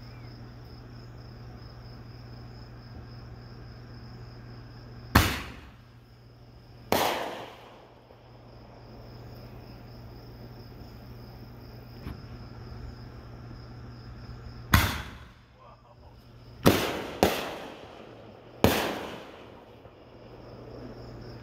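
Six fireworks bangs at uneven intervals, each trailing off in a rolling echo, two of them close together near the end. Insects chirp steadily underneath.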